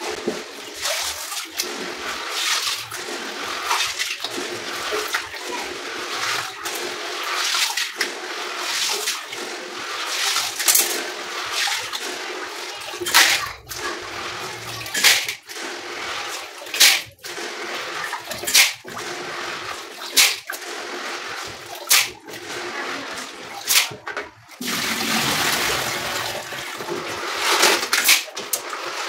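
Hands washing dry beans in a plastic basin of water in a metal sink: water sloshing and splashing. From about halfway, sharp clicks come every second and a half or two as handfuls of wet beans are scooped out and dropped into a bowl.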